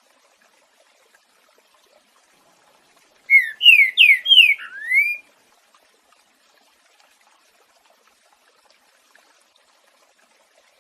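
Green-winged saltator (trinca-ferro) singing one short phrase of loud, slurred whistles in the 'boiadeiro' song style, about three seconds in, over a faint trickle of running water.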